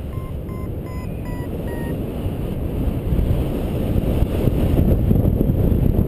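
Wind rushing over the microphone in flight under a paraglider, with a paraglider variometer beeping its climb tone, about three short beeps a second in the first two seconds, then only the wind. The beeping signals the glider rising in lift.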